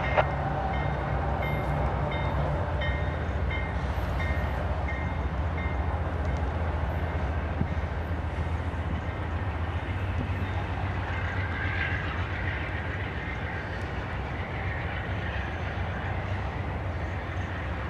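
Passenger train's stainless-steel cars rolling past close by with a steady rumble of wheels on rail. A level-crossing bell dings about twice a second during the first five seconds, and the rumble eases slightly near the end as the last car goes by.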